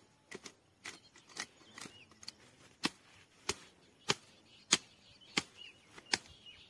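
A billhook chopping into a green stick at the base of a bush. A few lighter knocks come first, then from about three seconds in six hard, sharp chops land about two-thirds of a second apart.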